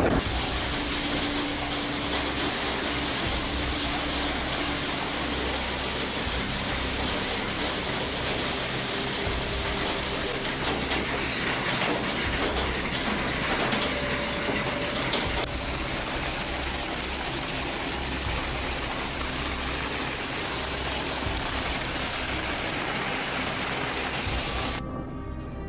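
Heavy storm downpour with hail: a dense, steady clatter of hailstones and rain hitting the ground and surfaces. A thin high tone runs over roughly the first half, and the texture shifts after it stops.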